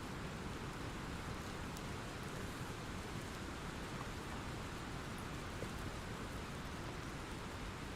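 Steady rain falling, a rain sound effect: an even hiss with a few faint drop ticks.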